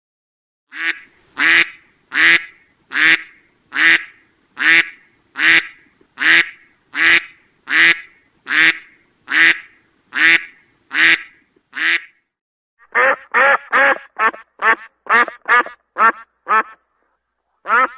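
Duck quacking: a steady series of single quacks, a little under one a second, for about twelve seconds. After a short pause comes a faster run of quacks, about three a second, which stops about a second before the end, and another run begins right at the end.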